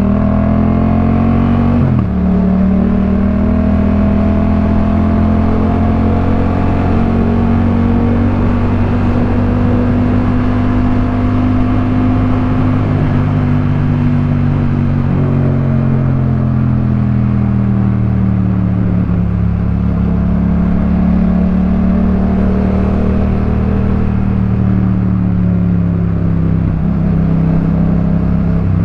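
Yamaha MT-07's 689 cc parallel-twin engine through a Jeskap K4 full aftermarket exhaust, heard from the rider's seat while riding. The revs climb over the first two seconds, break briefly for a gear change, then the engine pulls at moderate revs with the pitch slowly rising and falling.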